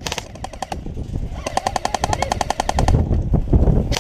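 Electric airsoft gun firing on full auto: a short burst at the start, then a longer burst of rapid, even clicks, about fourteen a second, lasting about a second and a half. A low rumble follows near the end.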